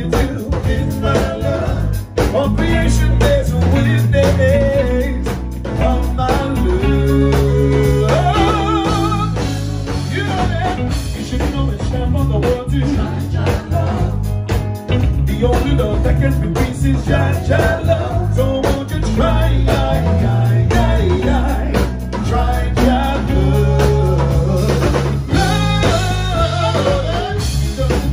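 Live reggae band playing: electric guitars, bass guitar and drum kit, with a man singing lead into a microphone.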